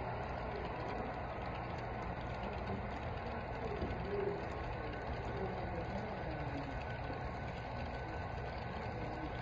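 HO scale model freight cars rolling past on the track: a steady mechanical rumble and clatter of small metal wheels on rail.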